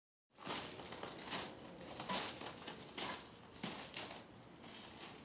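Footsteps crunching on a loose gravel floor, irregular steps about one a second, ending as a person settles onto a metal stool.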